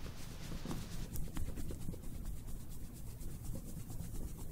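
Domestic cat purring with a steady low rumble, a contented purr, while its belly is rubbed, with faint rubbing of a hand on fur and a few small clicks.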